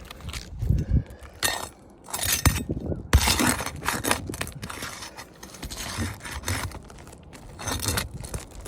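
Prying at roof shingles to pull out rusted nails: irregular scrapes, crunches and metallic clinks.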